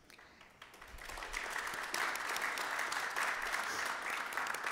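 Seated audience applauding, swelling over the first second or two, then holding steady.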